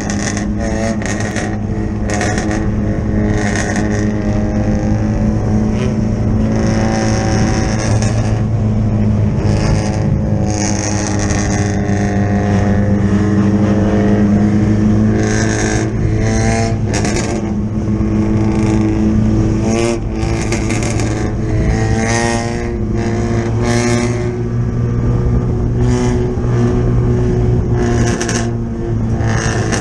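Four-cylinder dirt-track race car engine running at steady revs, heard from inside the cockpit, with a few brief rises in revs and frequent short clatters.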